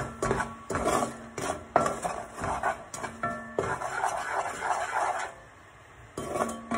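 A wooden utensil stirring food in a pot, scraping and knocking against the pot's sides and bottom at an irregular pace. The stirring pauses for about a second near the end, then starts again.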